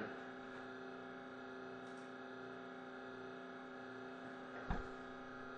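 Faint steady electrical hum in a quiet room, with one short soft knock about three-quarters of the way through.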